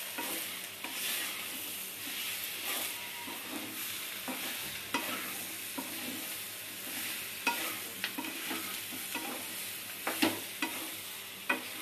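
Green jackfruit pieces frying with spices in a pan, sizzling steadily while being stirred, with sharp knocks of the spatula against the pan every second or two.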